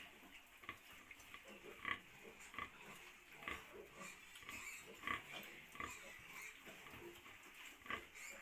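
Faint sounds of a sow nursing her litter of suckling piglets, with short calls every second or so.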